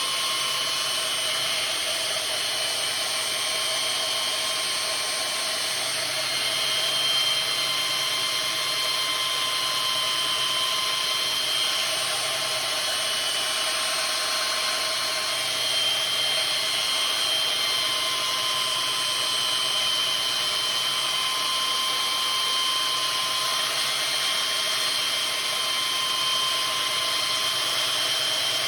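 Electric power tool running steadily with a high whine, grinding the edge of an old maul to sharpen it; its pitch shifts slightly now and then as the load changes.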